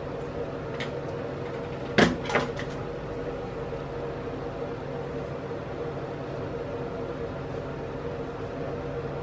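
Steady machine hum of room ventilation, broken about two seconds in by two sharp knocks close together, like something hard set down or a cupboard door shutting.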